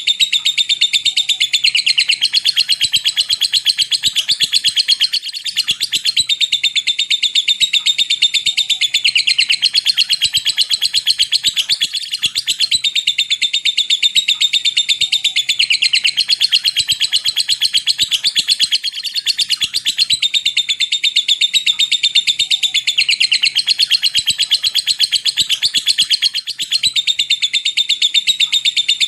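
Lovebird 'ngekek' chatter with 'ngetik' typing-like clicks: a long, rapid, high-pitched chattering trill. It runs in bouts of about six to seven seconds with short breaks between them.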